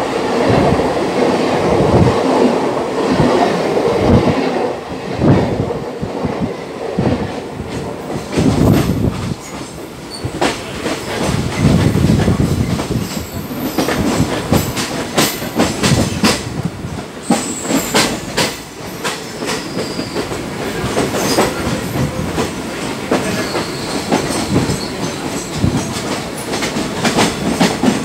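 Train running on the track, heard from an open coach door: a steady rumble of wheels with many sharp clickety-clack knocks over rail joints and points, and a few brief high wheel squeals.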